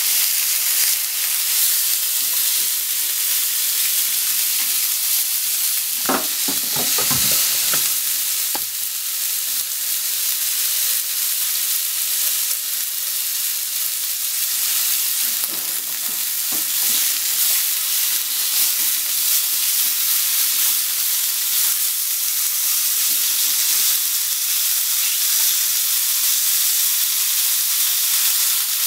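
Sliced pork belly sizzling steadily in a hot frying pan while it is turned with chopsticks. A short clatter of knocks comes about six to eight seconds in, and fainter ones around the middle.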